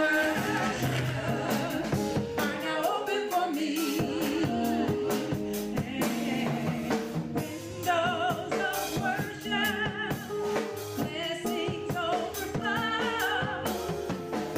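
Gospel-style song: singing with held, wavering notes over a drum kit and other backing instruments.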